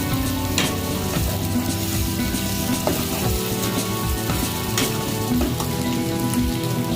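Food sizzling as it fries in a pan, with a few sharp clicks of a utensil stirring it, over steady background music.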